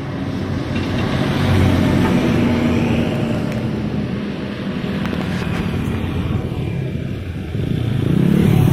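Road traffic passing: a coach bus drives by, followed by several motorcycles. One motorcycle engine passes close and louder near the end.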